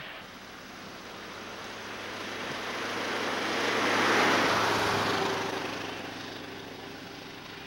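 An antique car driving past close by: its engine and tyre noise grow louder to a peak about four seconds in, then fade as it moves away.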